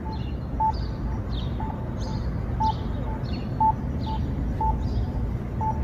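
Accessible pedestrian signal at a crosswalk sounding its locator tone: short beeps at one pitch, about one a second, that mark the push button while the signal still says wait. Quick falling high chirps, which sound like birds, come between the beeps over a steady low traffic hum.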